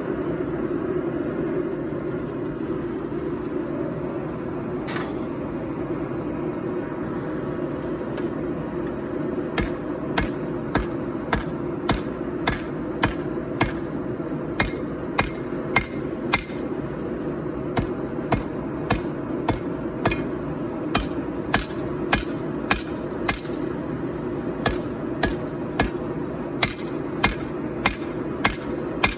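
Hand hammer forging hot 4140 steel on an anvil: one blow about five seconds in, then a steady run of blows about one and a half a second from about ten seconds on. The forge runs steadily underneath.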